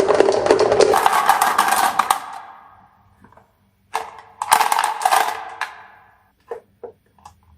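Marbles rolling and clattering down a marble run: a dense rattle that fades out, a second clattering burst partway through, then a few scattered clicks near the end.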